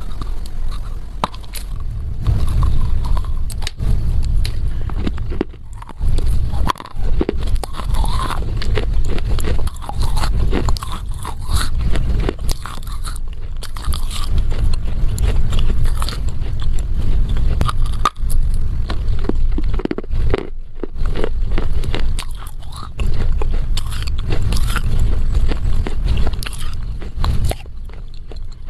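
Dry loess clay being bitten and chewed right at a lavalier microphone: a continuous run of crunching and crackling as the hard clay breaks and grinds between the teeth, with handling rumble from the microphone.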